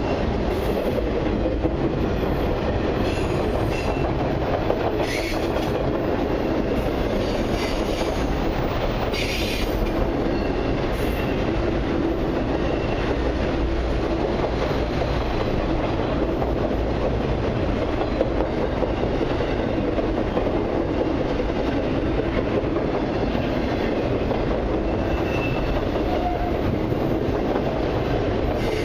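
Freight train of intermodal and autorack cars rolling past: a steady rumble of steel wheels on rail, with clatter and a few brief high-pitched wheel squeals.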